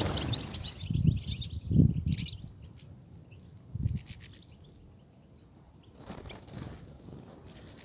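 European goldfinch twittering, with a quick run of high chirping notes over the first two seconds or so that then thins to a few faint chirps. Low thumps come about one, two and four seconds in.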